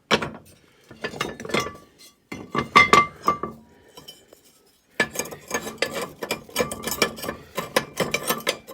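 Cast-iron parts of a Rayburn stove door being handled: a string of metal clanks and clinks, some ringing, with a short lull in the middle, then quick rattling clinks near the end.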